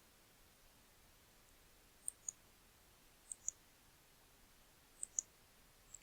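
Computer mouse button clicking: three quick press-and-release pairs of small sharp clicks, a second or more apart, with one more click near the end, over near silence.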